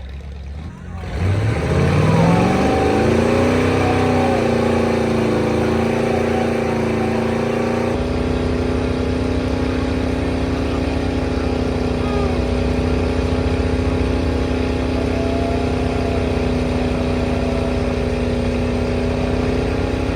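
Car engine revving up hard about a second in, then held at high, steady revs during a burnout.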